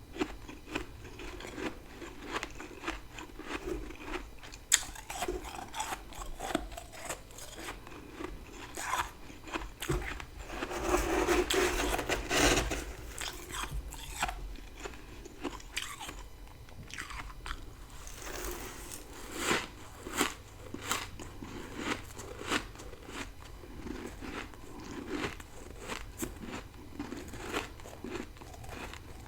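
Close-miked biting and crunching of mouthfuls of dry freezer frost grown with a humidifier, a run of sharp crackles as it is chewed. The crunching gets denser and louder for a couple of seconds near the middle.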